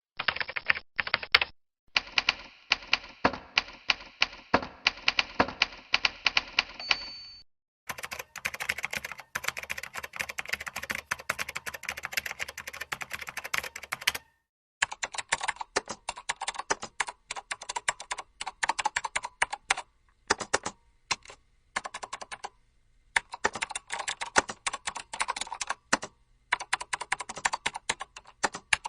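A run of typing sound effects: rapid, uneven keystroke clicking in several separate takes, each with a different tone, the takes changing near 2, 8 and 15 seconds in.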